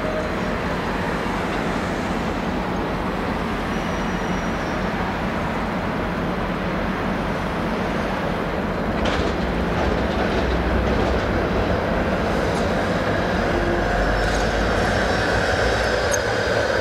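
Steady low rumble of diesel locomotives in a rail yard, getting a little louder about nine seconds in, with faint thin squealing tones near the end.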